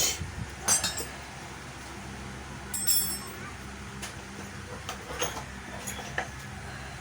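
Scattered clicks and clinks of small hard objects being handled, about seven in all, one with a brief metallic ring about three seconds in.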